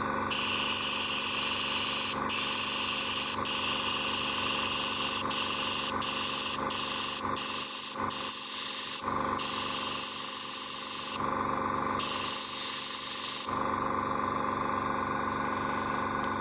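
An airbrush compressor runs steadily with an even low pulsing hum while the airbrush hisses in long bursts of air, cut off briefly many times as the trigger is let go and pressed again. The hissing stops a few seconds before the end, leaving the compressor running.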